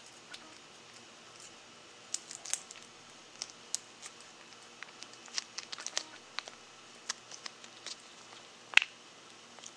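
Siamese cat licking a squeeze-tube treat and smacking its lips: an irregular run of small wet clicks and smacks, with one sharper, louder click near the end.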